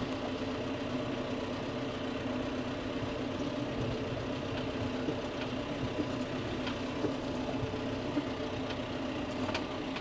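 John Deere tractor's diesel engine running steadily at low revs, heard from inside the cab as the tractor drives slowly across a field, with a few faint clicks.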